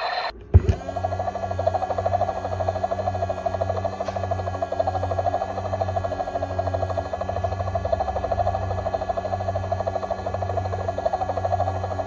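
Toy military transport helicopter's built-in electronic sound effect through its small speaker: a steady, rapidly fluttering helicopter-rotor sound with a low pulse a few times a second, starting after a click about half a second in.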